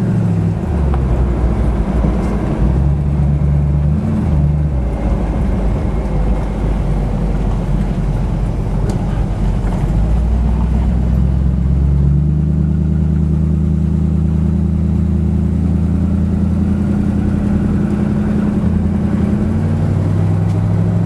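Old vehicle's engine running while driving, heard from inside the cab. Its note drops and rises several times as the road speed and gears change.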